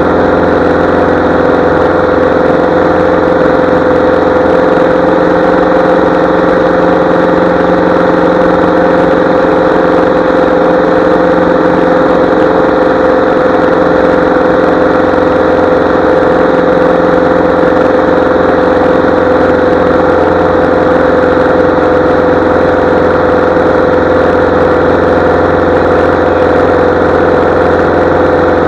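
Small single-engine airplane's piston engine and propeller running at a steady, unchanging speed.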